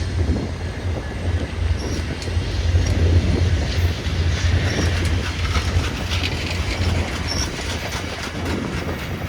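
VIA Rail passenger train rolling past as it departs: a steady low rumble of wheels on rail that eases slightly near the end.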